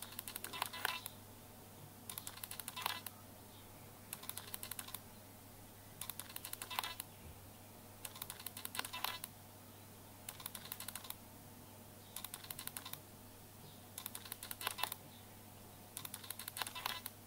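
Bursts of rapid clicking, each about a second long, repeating about every two seconds over a steady low hum.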